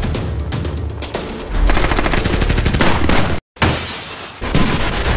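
Intro music with action sound effects: a fast rattle of rapid gunfire through the middle that cuts off abruptly, followed by glass shattering.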